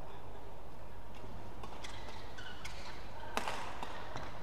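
Badminton doubles rally: scattered sharp racket strikes on the shuttlecock and brief squeaks of shoes on the court, over a low steady hall murmur. The loudest hit comes about three and a half seconds in.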